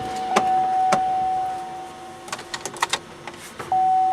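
2007 Chevrolet Silverado Classic's warning chime sounding as a steady high beep. It stops after about two seconds, a few sharp clicks follow, and the beep starts again near the end.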